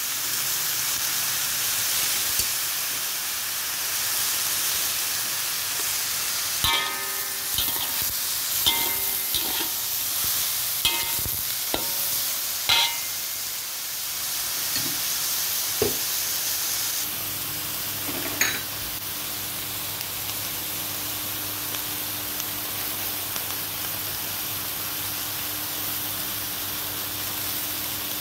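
Chicken and vegetables sizzling in a hot metal pan while being stir-fried. A metal spatula scrapes and clanks against the pan, with a run of ringing clanks from about 7 to 13 seconds in and a few more later. A steady low hum comes in a little past the middle.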